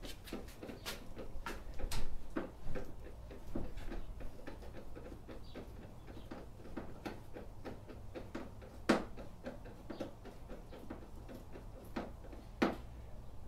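Scattered, irregular light clicks and knocks of hand tools and small screws on windshield mounting hardware being tightened, with sharper knocks about two seconds in, about nine seconds in and near the end.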